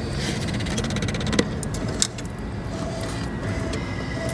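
Steady street background with traffic running, and two sharp clicks about a second and a half and two seconds in.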